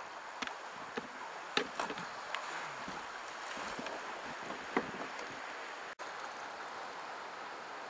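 Rushing whitewater heard from a kayak running rapids in a narrow rock gorge, with several sharp knocks and splashes of the paddle and hull in the first five seconds. The sound drops out for an instant about six seconds in.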